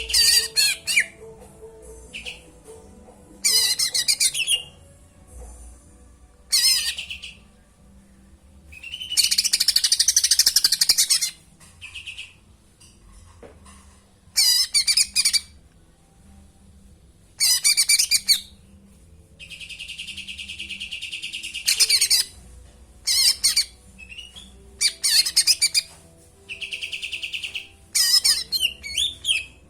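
Cucak ino songbird singing in loud bursts of a second or two with short pauses between, mixing steady buzzy notes with rapid chattering phrases. Its song includes mimicked sparrow (burung gereja) chirps.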